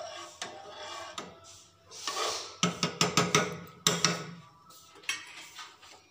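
A steel spoon stirring milky vermicelli in an aluminium pot, clinking and scraping against the pot. Scattered sharp clinks, with a quick run of them about halfway through.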